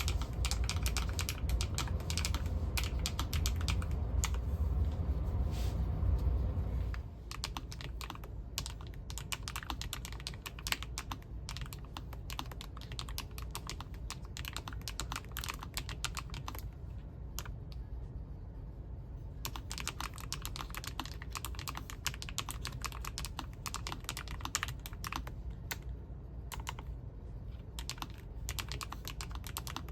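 Typing on a LOFREE Flow Lite100 low-profile mechanical keyboard with Specter switches: rapid, continuous keystroke clicks, thinning briefly a little past the middle. A low hum underlies the first seven seconds and then stops abruptly.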